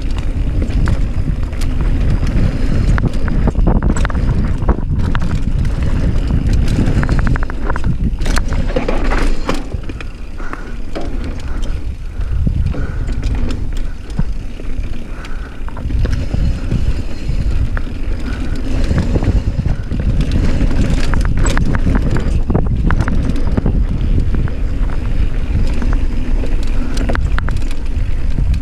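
Mountain bike running down a rough enduro trail, heard up close on the bike: tyres rolling over rock and dirt, with many sharp rattles and knocks from the bike, and wind rumbling on the microphone.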